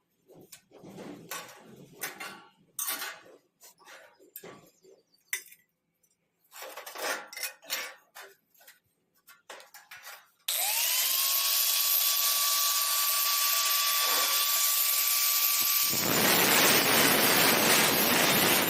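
Irregular clinks and scrapes of metal parts being handled for about ten seconds. Then a handheld power tool's motor starts with a quickly rising whine and runs steadily. Near the end it cuts into the metal with a loud rough noise for about three seconds.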